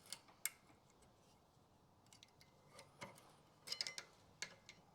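Light metallic clicks and taps as steel brake pad shims are pressed into place in a caliper carrier. A few scattered clicks, with a quick run of them a little before the end.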